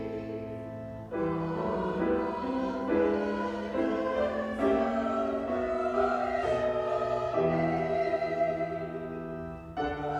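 Church music: a choir singing slow, sustained chords with instrumental accompaniment, as the service's closing music.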